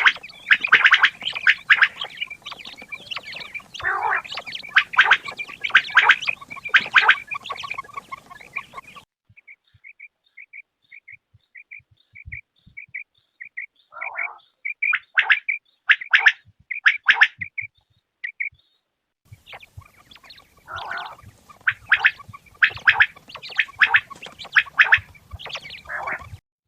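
Quails calling: rapid, overlapping calls for about nine seconds, then a steady run of short high pips at about two a second, then more bursts of calls. The sound cuts off abruptly twice.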